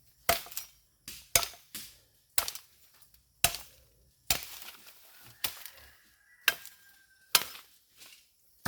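Wood being chopped for firewood: a steady series of sharp chopping strokes, about one a second.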